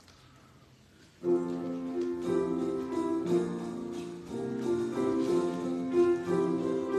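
Keyboard accompaniment starts suddenly about a second in, playing a slow series of held chords as the introduction to a choir anthem.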